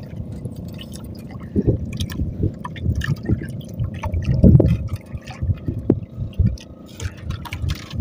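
Water sloshing and lapping against the hull of a small wooden outrigger boat, in irregular low surges, with scattered light clicks and knocks of fishing line and gear being handled in the hull.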